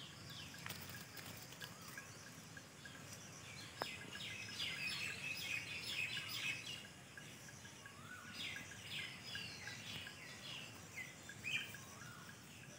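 Faint bird calls: many short, falling chirps that come in bunches, over a faint steady ticking, with one sharp click about four seconds in.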